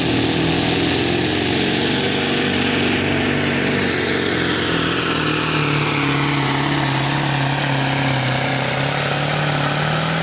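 Scania truck's diesel engine running flat out under full load while pulling a weighted sled down a dirt pulling track, loud and steady. A high whine glides slowly down in pitch through the middle of the pull.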